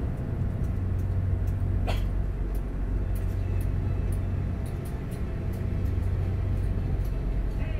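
Steady low hum and rumble inside a 2008-built executive passenger coach as the train rolls slowly into a station, with a few light clicks and knocks and one sharper click about two seconds in.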